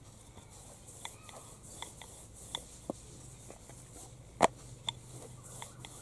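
Rolling pin rolling and rubbing dough against a wooden chapati board, with light scattered clicks and knocks of the pin and hands on the board and one sharper knock about four and a half seconds in.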